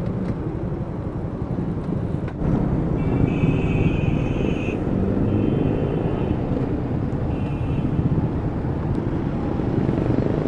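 Motorcycle engine running at low speed, with wind and road noise, as the bike rolls through traffic; a short click comes about two seconds in. A high shrill tone sounds three times, the first burst the longest, between about three and seven and a half seconds in.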